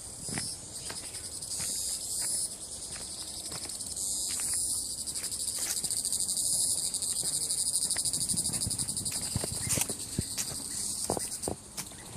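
Insects chirring: a high, rapidly pulsing trill in short phrases at first, then held steadily for several seconds, with a few faint clicks.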